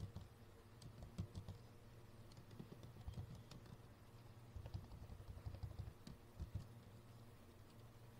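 Faint computer keyboard typing: irregular runs of keystrokes with short pauses, over a low steady hum.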